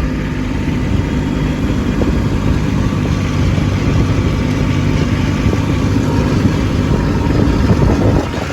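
Kubota B2601 compact tractor's three-cylinder diesel engine running steadily, with the level dropping slightly right at the end.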